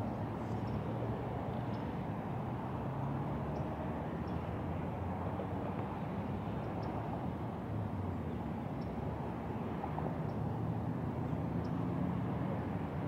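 Steady outdoor background noise: a low rumble with no clear source, with faint short high ticks now and then.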